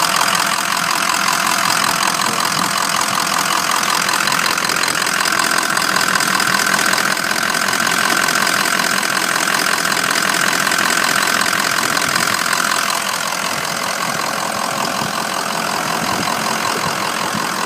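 2004 Ford F350's 6.0-litre Power Stroke V8 diesel idling steadily, with the close, even clatter of a diesel at idle. The engine is in good health, and the owner says it shows no blow-by.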